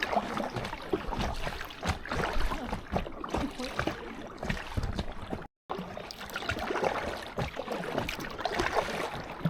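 Water splashing and lapping around an inflatable kayak as it is paddled, in many short irregular splashes. The sound cuts out completely for a moment about five and a half seconds in.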